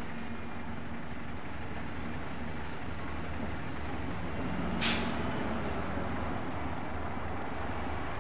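Bus engine running steadily, with one short, sharp hiss of air from the air brakes about five seconds in.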